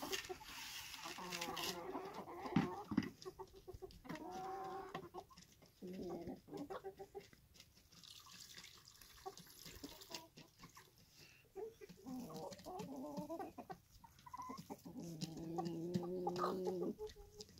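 A flock of chickens clucking, in several separate bouts of calls, the longest lasting about two seconds near the end.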